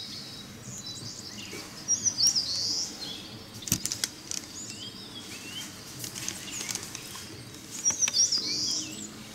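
Birds chirping in the background: a cluster of short, high calls about two seconds in and another near the end, with a few faint clicks between them.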